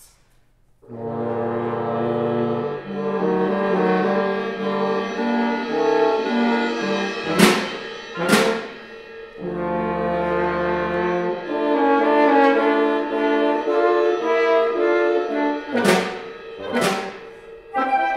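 Woodwind quintet playing, entering about a second in with held low notes under moving upper lines. The music is broken by two pairs of sharp, loud accents about a second apart, one pair around the middle and one near the end.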